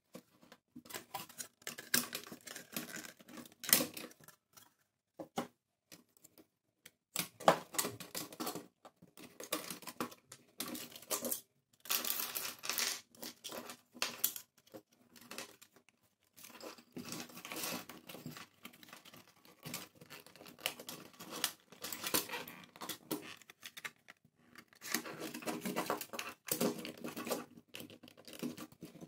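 Plastic housing and parts of a VIP-101 desk telephone being handled and pried apart: an irregular run of clicks, knocks and scrapes, with a longer scrape about twelve seconds in.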